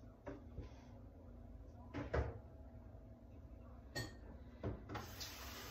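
Household knocks and clatter, cupboard and dish handling: about six short, faint clunks spread unevenly, the loudest about two seconds in.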